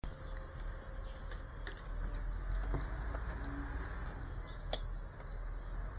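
Outdoor city ambience: a steady low rumble with birds chirping now and then, and a single sharp click about three-quarters of the way through.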